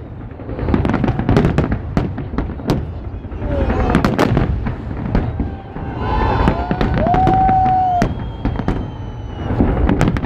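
Fireworks salute going off: repeated sharp bangs and crackling, with a crowd's voices underneath. About seven seconds in, a long high note is held for over a second among them.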